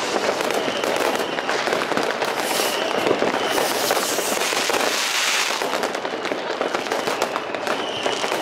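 New Year's Eve fireworks: a dense, continuous crackle of many rockets and firecrackers popping and banging. A whistling rocket sounds about two and a half seconds in and again near the end, and a rushing hiss swells about five seconds in.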